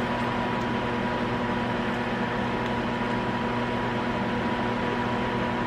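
Steady hum and hiss of a running electric fan, with a constant motor tone under an even rush of air.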